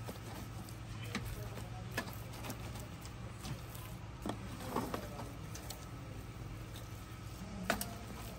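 Wooden spatula stirring thick semolina halwa in an aluminium pot, with scattered scrapes and knocks against the pot's side, the sharpest near the end, over a steady low hum.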